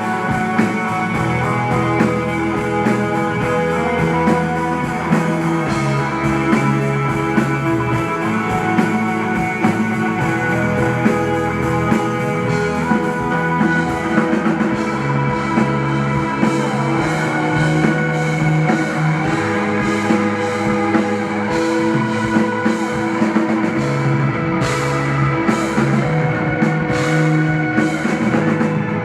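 Live rock band playing an instrumental passage with no singing: electric guitar, bass, drum kit and keyboard, with a few sharp drum hits near the end.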